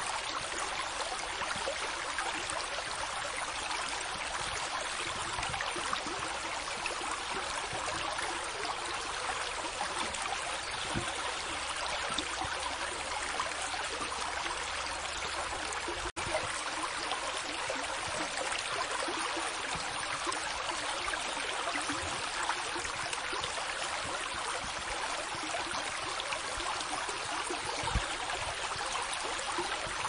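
Steady rushing of water, even in loudness without swells, cutting out for an instant about halfway through.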